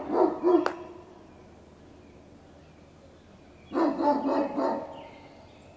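Great Pyrenees dogs barking in quick series of several barks each: one bout at the start and another about four seconds in.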